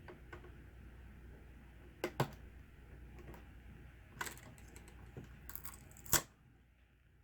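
Scattered sharp clicks and taps of small parts being handled inside an opened laptop during disassembly. There is a quick pair about two seconds in, and the loudest click comes near the end.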